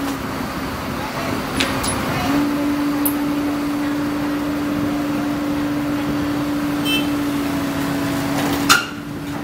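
Komatsu PC130 crawler excavator's diesel engine running under load as it crawls up onto the truck's trailer: a steady engine hum that steps up a little in pitch about two seconds in and holds. A loud knock sounds near the end.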